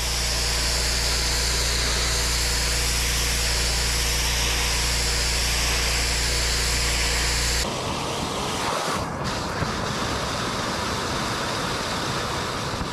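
Pressure washer spraying stone patio slabs: the steady hiss of the water jet over the machine's low hum. About two-thirds of the way through it changes to a gutter vacuum (industrial wet vac) hose sucking up standing water, a rougher steady rushing noise without the hum.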